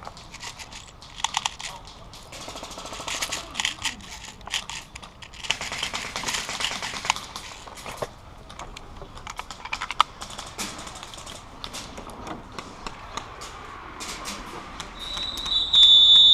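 Rapid, irregular sharp clicks and rustling noise. About fifteen seconds in, a loud, steady high-pitched electronic tone starts.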